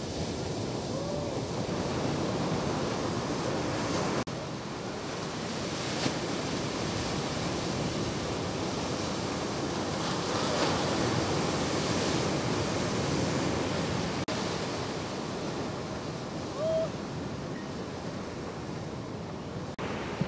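Ocean surf: waves breaking and washing in as a steady rushing noise, with one brief tone about three-quarters of the way through.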